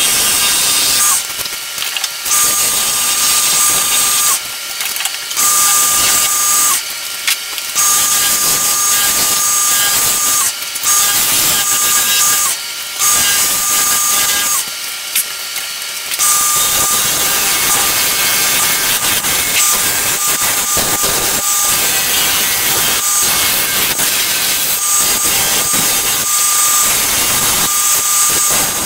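Wood lathe running with a steady high whine while a tool works the spinning wood vase blank, giving a loud hissing scrape. In the first half it comes in surges of about a second, then it turns more continuous.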